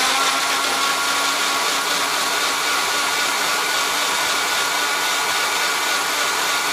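Personal bullet-style blender running steadily, its motor giving a constant whir with a steady hum as it purées peeled oranges into a smooth liquid; it cuts off at the very end.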